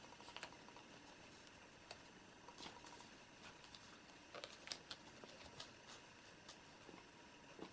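Near silence: room tone with a few faint light taps and small clicks, and one sharper click a little past halfway.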